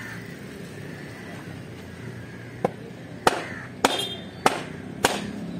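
Heavy fish-cutting knife chopping into a large barrier trevally on a wooden block: five sharp chops, about one every 0.6 s, starting about halfway through.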